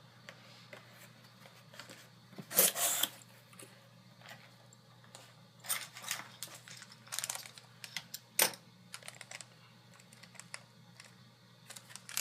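Scattered light clicks and taps on a MacBook Pro's keys and trackpad as it is being shut down, with one longer, louder noise about two and a half seconds in.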